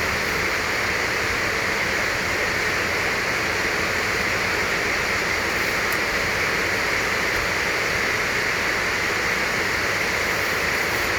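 Steady fan noise, an even hiss at a constant level, with a faint click about halfway through.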